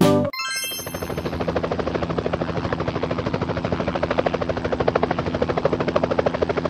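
A short sparkling magic chime about a second in, then a helicopter rotor sound effect: a fast, even chopping that carries on steadily.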